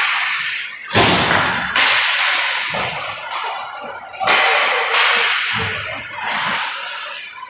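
Ice hockey play in an echoing indoor rink: about six sharp cracks and bangs, from pucks and sticks striking, each ringing off in the arena's echo.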